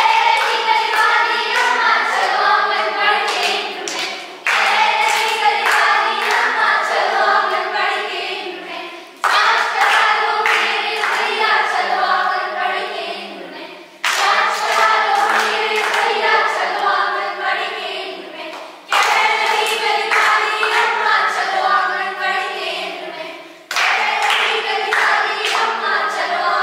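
A group of young voices singing a song together, in repeated phrases of about five seconds that each start sharply and fade away, with some hand claps.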